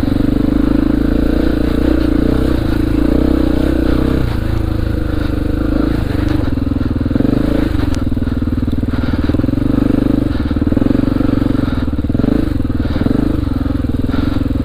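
Honda XR400R single-cylinder four-stroke dirt bike engine running loud and continuous while being ridden, its note shifting a few times with the throttle.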